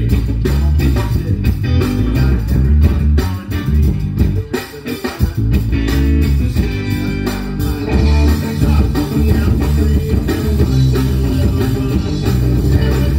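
Live rock band playing: electric guitar over bass guitar and drum kit, the band thinning out briefly about four to five seconds in before coming back in full.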